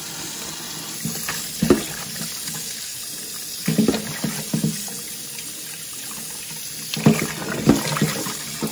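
Tap water running into a stainless steel bowl of cut beef feet being washed by hand. A few clunks come about 2, 4 and 7 seconds in as the pieces are moved about in the bowl.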